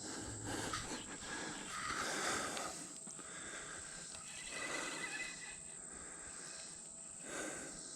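Steady high-pitched insect buzzing, with four or five soft swells of rustling noise rising and fading over it.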